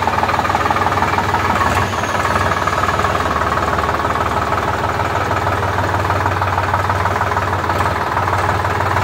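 The three-cylinder diesel engine of a Preet 3549 tractor runs steadily at low revs as the tractor is driven slowly forward and back.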